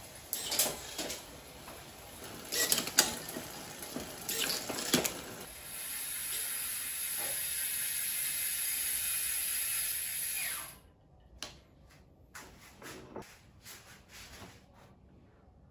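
Crisp clicks of Shimano Ultegra Di2 electronic shift-lever buttons being pressed over and over, with the electronic derailleur shifting. After that a steady hiss runs for about five seconds and cuts off sharply.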